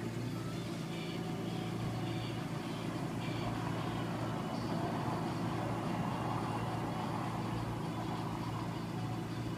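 Steady engine hum of cars in slow traffic, heard from inside a car's cabin, swelling slightly about five to six seconds in.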